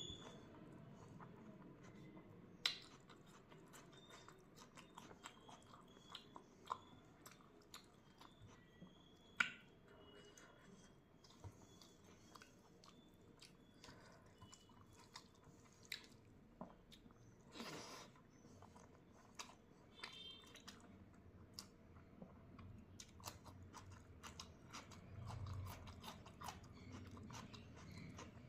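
Faint close-mic eating sounds: a person chewing a meal of rice, egg curry, raw onion and cucumber, with wet mouth clicks and occasional crunchy bites. Two sharper clicks stand out, about three and nine seconds in.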